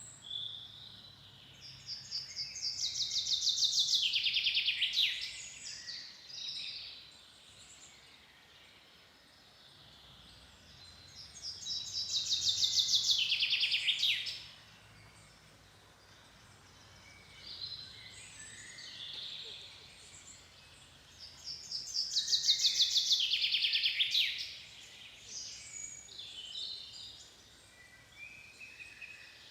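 A songbird singing the same fast trilled song three times, about every ten seconds: each song is a quick run of repeated notes that swells in loudness and slides down in pitch over about three seconds. Softer chirps from other birds fill the gaps.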